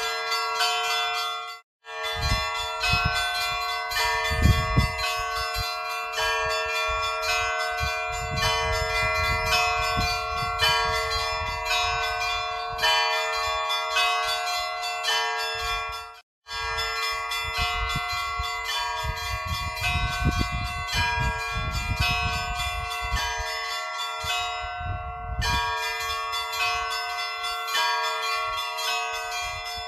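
Church bells ringing: several bells of different pitch struck in a quick, repeating pattern over the steady hum of a lower bell. The sound cuts out briefly twice, about two seconds in and about sixteen seconds in.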